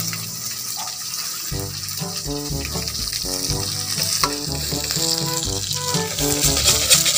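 Earthworms frying in hot oil in a steel wok, a steady sizzle that gets louder near the end, stirred with a metal ladle. Background music with a melody and bass line plays over it.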